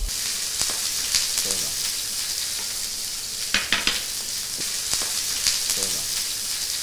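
Zucchini, baby corn and carrot sizzling in hot fat in a ridged grill pan alongside a searing beef fillet. A few sharp clicks come from metal tongs tapping the pan as the vegetables are turned.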